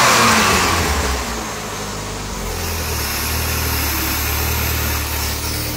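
Chrysler PT Cruiser GT's turbocharged 2.4-litre four-cylinder running on a replacement exhaust camshaft, with a loud rush of air from the turbo as the throttle is worked. About a second in the rush fades and the engine settles to a steady idle.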